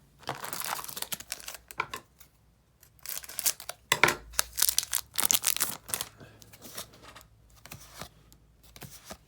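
Foil booster pack wrapper crinkling and tearing open, with trading cards being handled and flicked in a string of quick clicks, busiest in the middle of the stretch.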